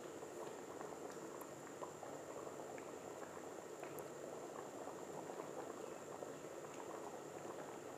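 Thick lobia bean curry simmering in a pan: a soft, steady bubbling with many small pops as bubbles break through the gravy.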